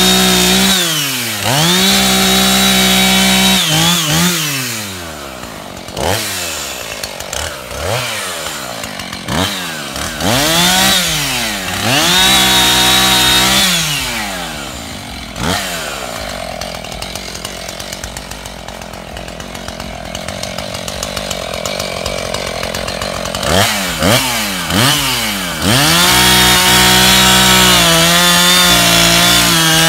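Two-stroke engine of a Stihl string trimmer used for edging, revved up to full throttle and held for a second or two, then let back down to idle, over and over. A longer stretch at low revs in the middle, then full throttle again near the end.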